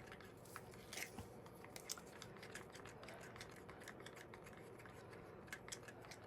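Faint, scattered clicks and scrapes of a stirrer against the mixing cup as two-part liquid silicone rubber is stirred, the sides and bottom being scraped.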